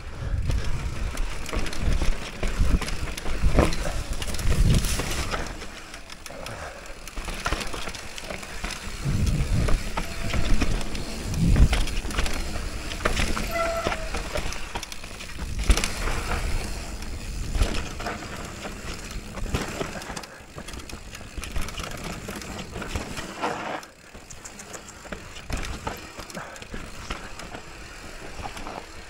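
Mountain bike descending a rough downhill trail: tyres rumbling over dirt and rocks, with irregular knocks and rattles and surges of louder noise.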